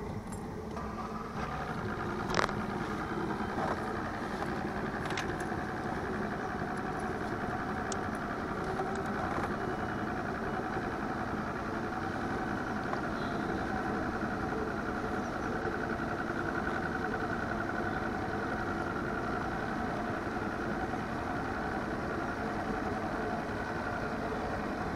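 Boat's outboard motor catches at the start and settles into a steady idle. There is one sharp click about two seconds in.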